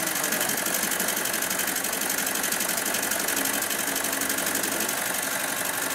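Brother-type BAS-326G direct-drive programmable pattern sewer running steadily at high speed, its needle bar and shuttle hook stitching a box-and-cross bar tack into safety-belt webbing as the clamp moves the work.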